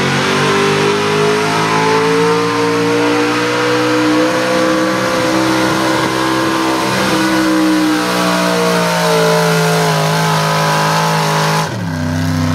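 Pulling truck's engine running at full throttle under heavy load while dragging a weighted sled, its note held high with a slight rise and fall. Near the end the sound cuts abruptly to a lower engine note.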